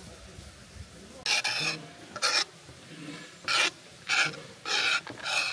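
A series of about six short, rough rasping scrapes, irregularly spaced, over a faint steady outdoor hiss.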